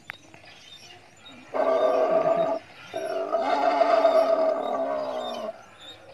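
Animatronic Ankylosaurus playing recorded dinosaur roars through its loudspeaker: a short roar about a second and a half in, then a longer one that fades out about five and a half seconds in.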